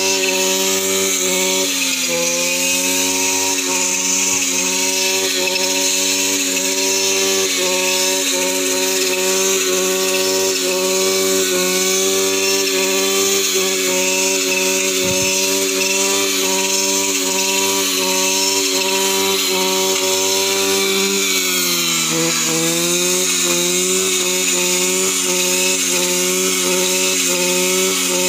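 Petrol brush cutter engine running steadily at high speed while cutting grass; its pitch dips briefly and recovers about two seconds in and again a few seconds before the end.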